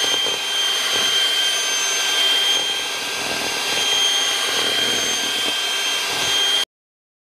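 Electric hand mixer running steadily with a high whine, its beaters whipping heavy cream in a stainless steel bowl toward stiff peaks. The sound cuts off suddenly well before the end.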